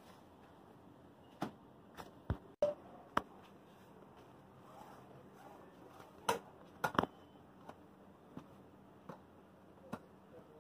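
Scattered metallic clicks and knocks from the steel frame and hinge brackets of a folding cot being handled, with the loudest cluster about six to seven seconds in.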